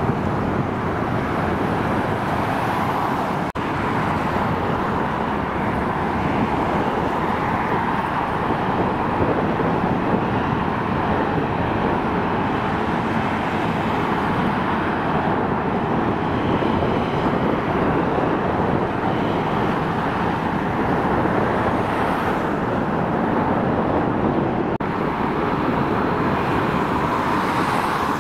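Steady noise of jet engines at taxi and road traffic at the edge of an airport, with a brief dropout about three and a half seconds in.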